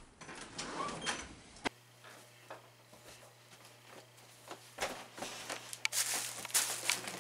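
Faint room sounds of handling and movement: scattered soft clicks and knocks, with rustling that grows louder near the end. A low steady hum comes in about two seconds in.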